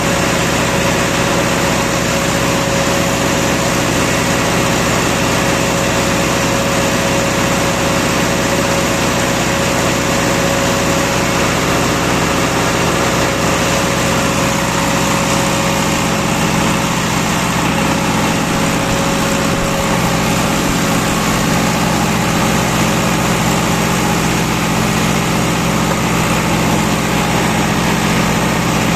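Diesel engine of a 50 kW three-phase generator set running steadily, with a thin whine over it that fades out about two-thirds of the way through.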